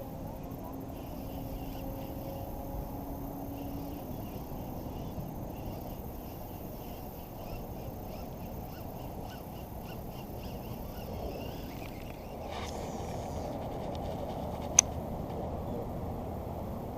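Steady low outdoor rumble with faint scattered bird chirps, and one sharp click about fifteen seconds in.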